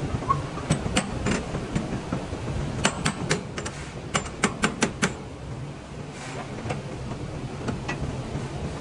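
Steel locking bars and handles on shipping container doors being worked shut, giving sharp metallic clicks and clanks. A quick run of them comes about three to five seconds in, over a steady low hum.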